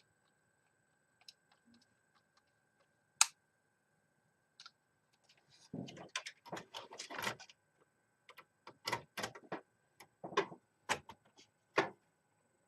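A screwdriver driving a fan screw into the plastic mounting hole of a CPU cooler fan: irregular clicks and scraping creaks, with a sharp click about three seconds in and a dense run of scrapes a little past halfway.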